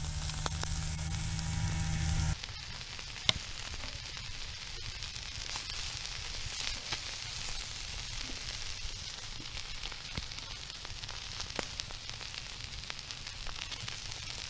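Cured, dried caplin sizzling on the hot top of a wood-burning tent stove: a steady hiss with scattered crackles and ticks, one sharp click about three seconds in. A low hum in the first two seconds cuts off abruptly.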